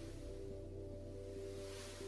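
Background music of soft sustained tones with an airy wash that swells near the end.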